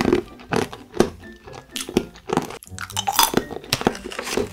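Crunchy snack being chewed close to the microphone: a string of sharp, irregular crunches.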